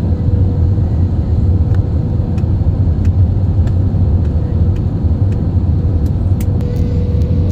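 Steady low rumble of a jet airliner's cabin on the approach to landing, engine and airflow noise heard from a window seat, with a thin steady hum above it. A few faint ticks come near the end.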